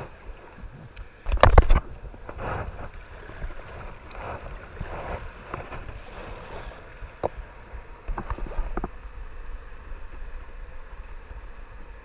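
Kayak paddle strokes dipping and splashing in river water beside a plastic sit-on-top kayak, with one loud splash about a second and a half in and a few sharp knocks later on. The splashing eases near the end as the kayak glides.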